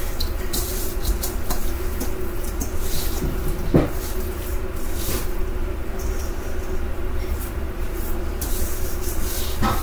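Raw chicken wings being tossed and rubbed with seasoning by hand, a run of soft scratchy rustles and squelches over a steady low hum, with a brief rising tone about four seconds in.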